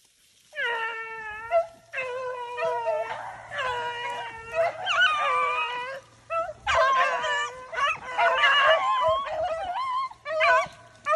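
A pack of beagle hounds baying on a swamp rabbit's trail: long drawn-out howling calls, one voice at first, then several voices overlapping from about seven seconds in.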